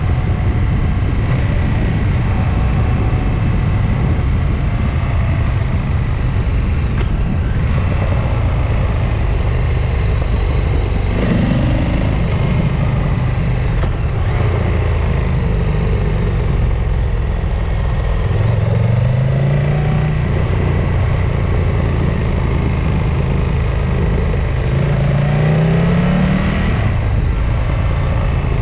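Motor vehicle engine rising in pitch as it accelerates, three times, over a steady rumble of wind and road noise.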